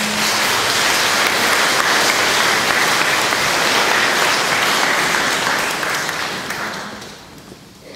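Congregation applauding, starting at once and dying away about seven seconds in.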